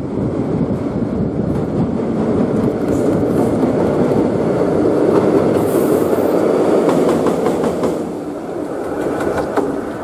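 JR Freight EF66 electric locomotive running light across a steel railway bridge: wheels rumbling and clattering on the rails, loudest as it passes about six seconds in, then easing off.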